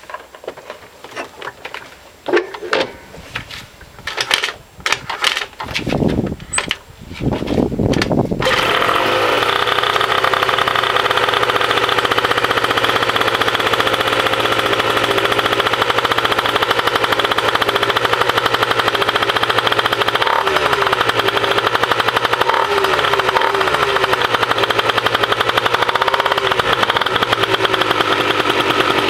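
Two-stroke scooter with a Yasuni C21 Sport Pro expansion exhaust being started from cold after standing two weeks. For about eight seconds there are irregular knocks and a few low sputters as it tries to fire, then it catches and settles into a steady idle, the pitch wavering slightly now and then.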